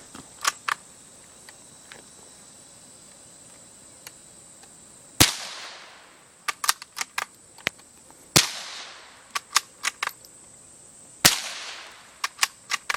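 Three gunshots about three seconds apart, each a sharp crack with a short echoing tail, with smaller clicks and taps in between.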